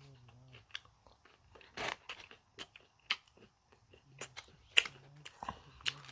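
A person chewing a breaded chicken nugget close to the microphone: irregular crunches and wet mouth clicks, with a couple of louder crunches.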